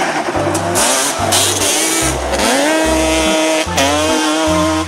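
Engine revving sound, motorbike-like, with its pitch rising twice, over background music with a steady bass beat.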